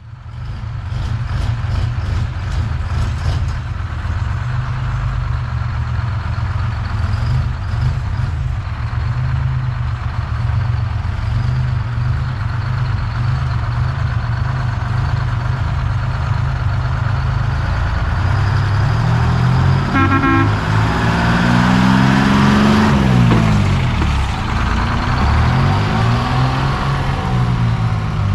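Diesel semi-truck engine running steadily. In the last third its pitch rises and falls several times as it revs and pulls through the gears.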